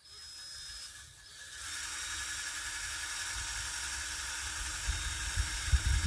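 A power tool motor runs continuously as a steady high whine with a hiss over it. It starts at once, dips briefly about a second in, then holds a steady level.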